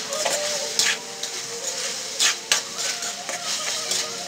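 A cooking utensil stirring and turning chicken pieces in a pot of broth, with several sharp knocks and scrapes against the pot.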